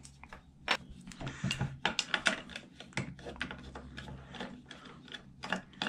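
A screwdriver working the screws of an alternator's metal housing: irregular small metallic clicks, ticks and scrapes as the tool slips and turns and the alternator is handled on the table.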